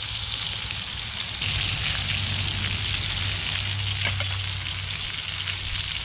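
Chicken thighs and Cubanelle peppers frying in olive oil in a pan over a campfire: a steady sizzle that grows louder about a second and a half in.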